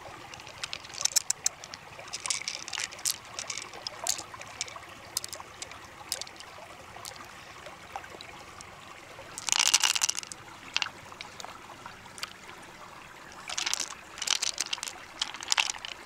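Close, wet handling sounds of fingers working through the soft flesh of a large pearl mussel: scattered small clicks and squelches, and one louder wet squelch about ten seconds in.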